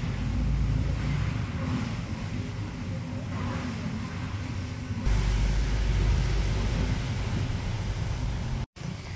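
Low rumbling noise, swelling suddenly about five seconds in, with a brief cut-out near the end.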